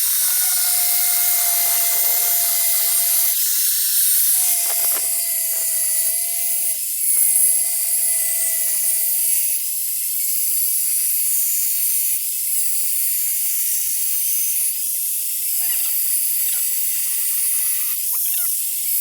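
An electric grinder grinding the steel edge of a cleaver: a steady, high hiss with a faint motor whine under it. The whine breaks off briefly every few seconds and grows fainter in the second half.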